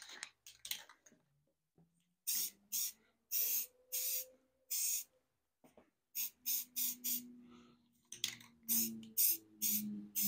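Aerosol can of Rust-Oleum camo spray paint, sprayed in a series of short bursts, about a dozen quick hissing passes, each under half a second, with a short pause partway through.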